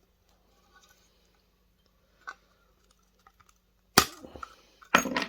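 Brittle plastic housing of a video projector snapping as it is broken apart: a faint click about two seconds in, then two sharp cracks about a second apart near the end.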